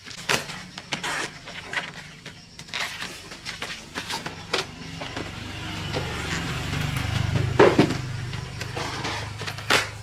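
A motor running steadily, louder for a couple of seconds past the middle, with many short knocks and clatters over it.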